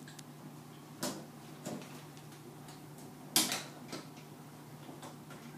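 Sharp plastic clicks and knocks of a Square D QO plug-on circuit breaker being unseated from the panel's bus bar and handled: about five separate clacks, the loudest about three and a half seconds in.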